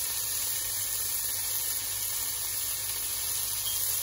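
Steady hiss of water boiling in a steel pot on a gas hob.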